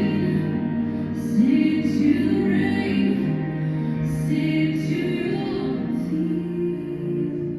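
Music with a sung vocal line, in phrases that start again about every second and a half to three seconds.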